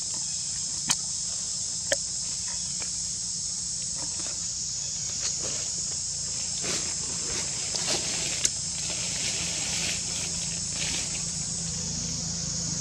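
Steady high-pitched drone of forest insects, with a few sharp clicks, one about a second in, one at two seconds and one past the middle.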